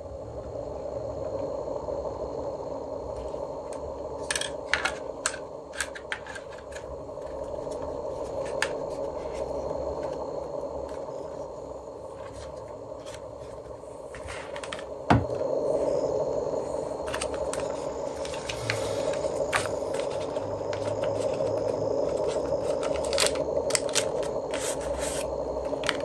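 Hands handling a DJI Osmo Pocket 3 handheld camera and its small plastic accessories on a desk: scattered sharp clicks, taps and scrapes in little clusters, with one louder knock about halfway through, over a steady background hum.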